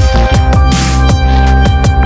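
Electronic background music, dubstep-style, with a heavy bass beat and steady synth tones.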